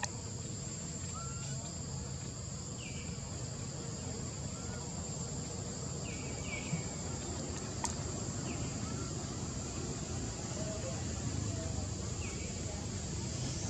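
Steady high-pitched drone of insects, cicadas or crickets, in a tree canopy, with a few short high chirps scattered through it and a single sharp click about midway.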